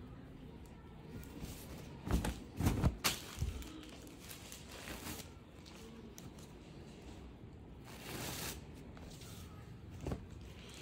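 Rustling of unstitched cloth being unfolded and handled by hand, in several bursts, the loudest a couple of seconds in and quieter ones later.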